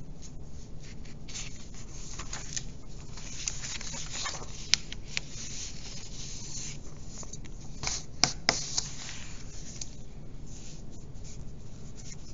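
Sheets of paper rustling and sliding on a desk as pages are handled and swapped, with a few sharp taps about five and eight seconds in.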